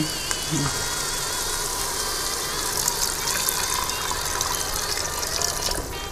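Water poured in a stream into an electric multicooker's pot of frying spice paste, a steady splashing gush that stops just before the end.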